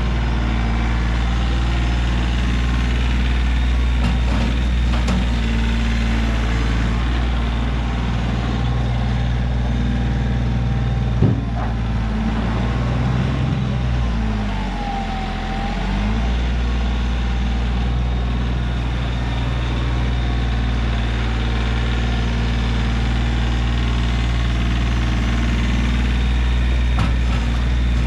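Kioti CK3510 compact tractor's diesel engine running steadily during loader work. There is a single sharp knock about eleven seconds in. Around the middle the engine note sags and then recovers as the bucket pushes into the pile.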